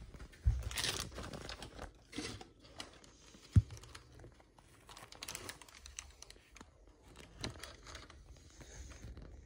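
Plastic crinkling and rustling in irregular bursts, with a single sharp knock a few seconds in.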